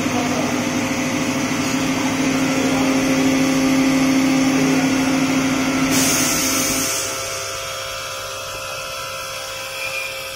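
Cosmos VMC vertical machining centre milling the flights of a steel feeder screw turned on its 4th-axis rotary table: a steady machining hum with a strong low tone. About six seconds in there is a brief hiss, and soon after the low tone drops away and the sound gets a little quieter.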